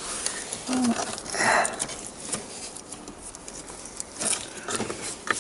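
Scattered clicks and rustling of hands handling plastic dashboard trim and wiring in a car interior, with a brief low hum from a person about a second in.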